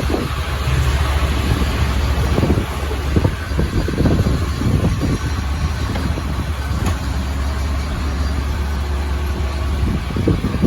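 An engine running steadily with a low rumble, with uneven gusts of wind buffeting the microphone.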